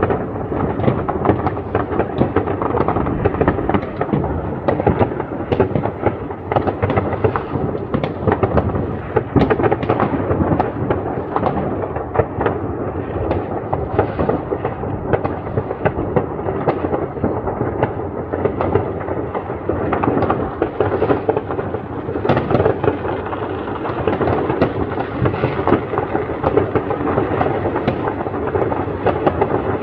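Many fireworks and firecrackers going off at once, their bangs and crackles overlapping into a continuous rumble without a break.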